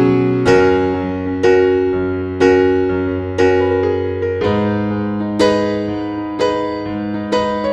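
Background music: slow keyboard chords in a piano-like tone, one struck about once a second and each left ringing.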